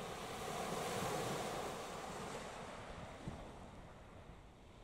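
Waves washing on the shore, a hiss that swells about a second in and dies away towards the end, with wind buffeting the microphone.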